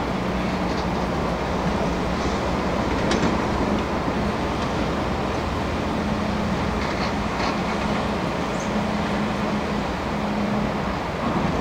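Tracked hydraulic excavator working in a river: its diesel engine runs with a low drone that fades and returns as the arm and bucket move, over the steady rush of fast-flowing river water. A few faint clicks come through about three and seven seconds in.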